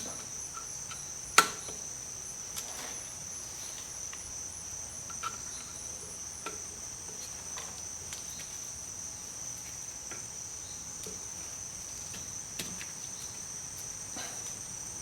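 Sparse metallic clicks and taps of a small tool prying a locking ring out of a Rolls-Royce Phantom III wheel hub, the sharpest about a second and a half in. A steady high-pitched insect chirring runs underneath.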